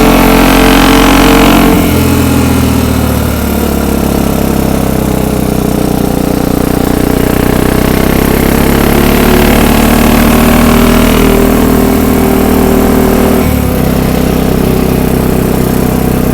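ATV engine running under way, loud and steady. Its note steps down about two seconds in, climbs slowly, and shifts again near the end as the throttle or gear changes.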